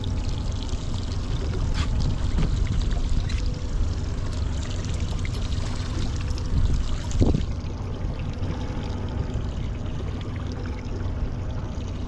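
Water sloshing and splashing against a small boat's hull over a steady low rumble, with a single knock about seven seconds in.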